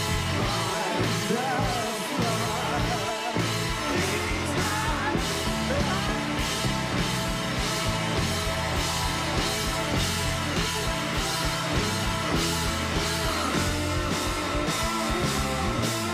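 Rock band playing live on electric guitars, bass guitar, drums and keyboard, with a man singing.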